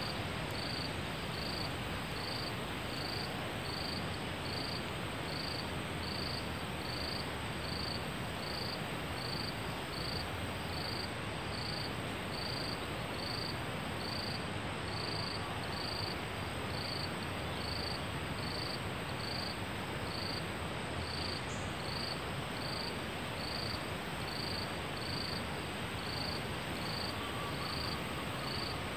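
Forest ambience: an insect chirping in an even, regular pulse, a little more than once a second, high-pitched, over a steady hiss, with a thin steady high whine above it.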